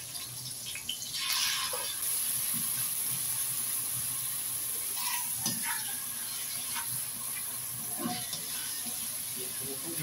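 Chopped meat dropped into hot oil in a wok with onion and garlic, sizzling up about a second in and then frying with a steady sizzle. A few short scrapes and knocks come from a spatula stirring the meat against the wok.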